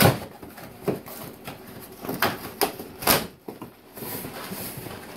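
Cardboard shipping box being pulled open by hand: packing tape and cardboard flaps tearing and scraping in a series of short, sharp rips, the loudest at the start and about three seconds in.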